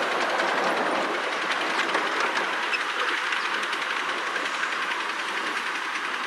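Wheels of a 5-inch gauge miniature train's wagons rolling along the track: a steady rolling noise with a run of quick, light clicks.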